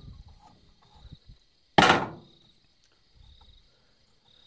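A single sharp knock about two seconds in, dying away within half a second, made while a screwdriver and wires are being handled at a starter panel on a wooden board. Crickets chirp steadily in the background.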